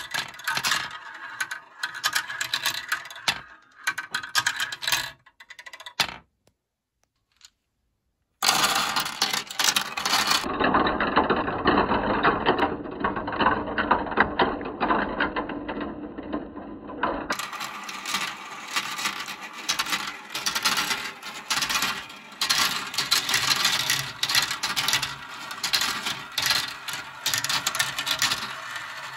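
Plastic balls rolling and clattering down a Kumikumi Slope plastic marble run, rattling along the chutes and spinning round the funnels with many quick clicks as they knock against the track and each other. The sound drops out for a couple of seconds about six seconds in, then goes on.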